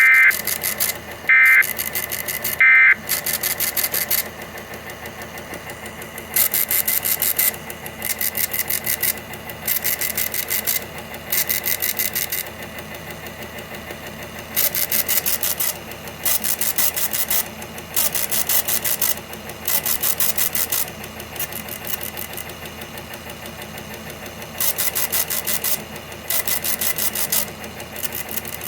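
Three short bursts of digital data tones from a NOAA Weather Radio broadcast, the end-of-message signal that closes an alert test. These are followed by repeated bursts of hissy static about a second long, with short gaps between them.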